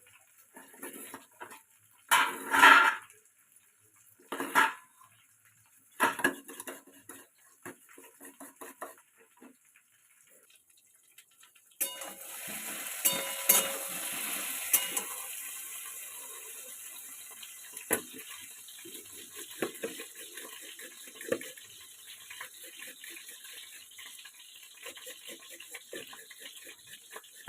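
Kitchen pots, pans and utensils clattering and clinking, with three loud bursts in the first six seconds. About halfway through, a steady hiss starts and slowly fades under further clinks.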